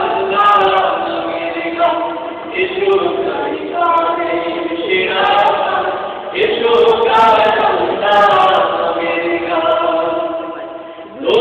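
A small group of men singing a Bengali song together in unison without instruments, in sustained phrases of a few seconds each.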